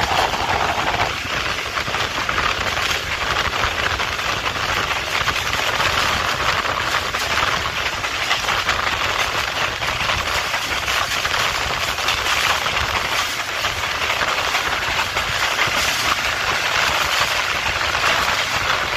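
Pakistan Railways Tez Gam Express passenger train running along the track: a steady rushing rattle of wheels and coaches.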